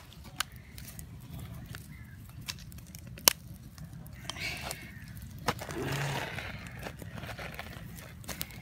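Wood fire crackling with a few sharp pops, the loudest about three seconds in, and two short stretches of rustling around the middle.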